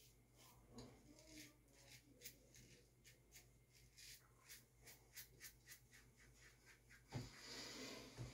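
Faint, crisp scrapes of a Merkur 34C double-edge safety razor cutting stubble through shaving lather, about three or four short strokes a second. About seven seconds in there is a knock, then a sink tap starts running.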